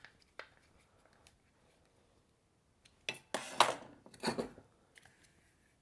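Hand tools and a plastic chainsaw recoil-starter housing handled on a metal workbench: a few faint clicks, then a short clatter about three seconds in as the hex driver is set down, with another knock about a second later.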